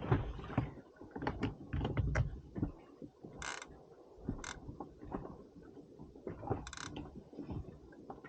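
Fishing reel mechanism clicking and ratcheting while a rod is handled and set out, with scattered knocks and three short hissy bursts, the first about three and a half seconds in.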